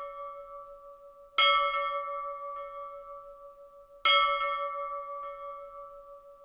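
A bell rings out, struck again about a second and a half in and once more about four seconds in. Each stroke starts bright and rings on, slowly fading away.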